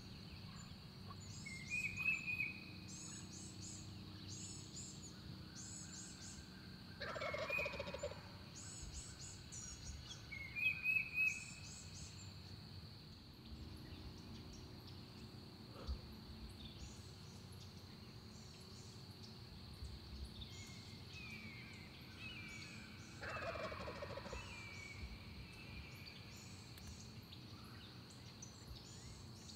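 Eastern wild turkey gobbler gobbling twice, about 7 and 23 seconds in, each gobble about a second long. Short sharp higher bird chirps about 2 and 11 seconds in are the loudest sounds, over faint small-bird calls throughout.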